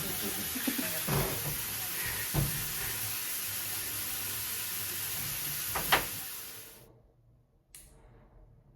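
Steady hiss with a few faint knocks, fading out quickly about seven seconds in to near silence, followed by one short click.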